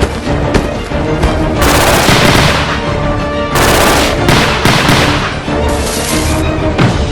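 Dramatic background music with gunfire sound effects laid over it. The shots come in several loud volleys, the first about a second and a half in and others over the next few seconds.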